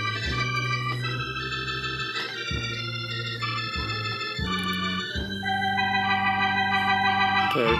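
Vintage 1970s Hammond home organ playing a slow tune: held chords over a bass line whose notes change about every second.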